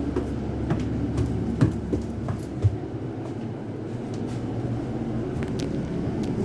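Inside a moving London bus: steady engine and road rumble, with frequent clicks and rattles from the body and fittings and a couple of louder knocks early on.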